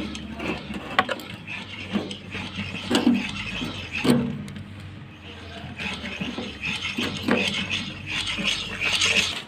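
JCB 3DX backhoe loader's diesel engine running steadily, with irregular scraping and clanking knocks from the machine's work.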